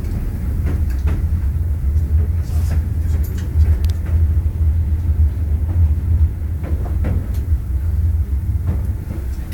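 Steady low rumble of an old wooden railway carriage running on the rails, with scattered short knocks and rattles.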